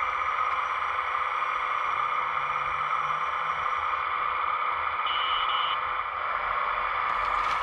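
Scale RC hydraulic construction machine running: a steady whirring hiss from its hydraulic pump and electric motors, with a faint steady hum underneath.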